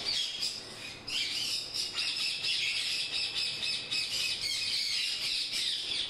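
A flock of caged Indian ringneck parakeets squawking and calling over one another, an unbroken racket of shrill calls that eases briefly about a second in.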